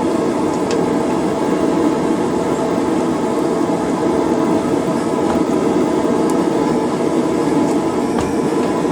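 Steady roar of a running gas forge and its blower, with a few faint light ticks.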